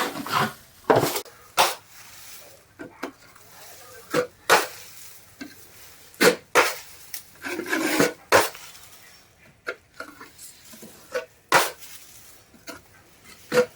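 Drywall knife working wet joint compound: short scrapes and knocks at irregular intervals, as the compound is spread on for a coat before texturing.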